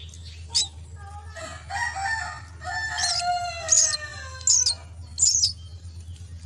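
Myna birds calling at the nest: drawn-out calls that slide down in pitch over a few seconds, broken by four short, shrill squeaks, over a steady low hum.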